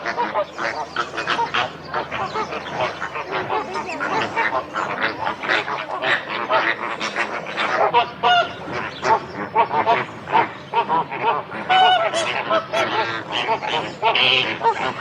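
A flock of flamingos honking and chattering, with many short, goose-like calls overlapping without a break.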